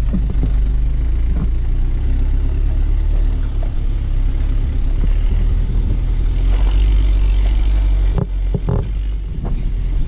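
A motor vehicle's engine runs steadily while driving slowly over a rough dirt track. A few knocks and rattles come a little after 8 seconds in.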